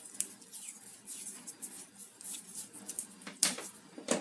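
PVC electrical insulating tape being unwound from the roll and wrapped tightly around a cable joint, with a run of short crackling peels. A sharper click comes about three and a half seconds in, and a knock comes near the end.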